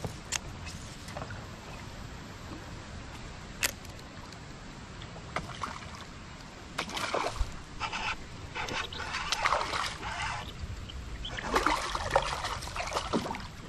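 A hooked bass splashing and thrashing at the water's surface beside a kayak, in repeated bursts from about halfway through. Before that there are only a few light clicks.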